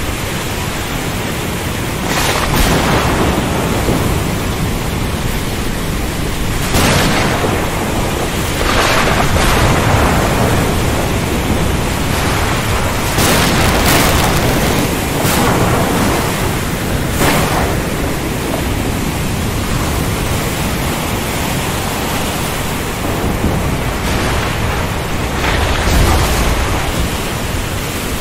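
Thunderstorm ambience: a steady rush of rain, wind and sea, broken every few seconds by sharp cracks of thunder, with a deeper rumble near the end.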